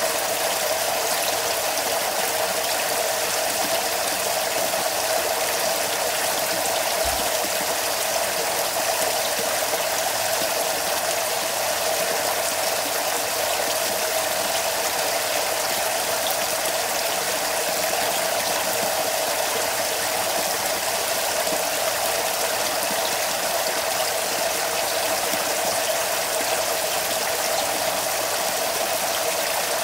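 Water pouring steadily from a PVC pipe into an aquaponics fish tank, splashing and churning the surface.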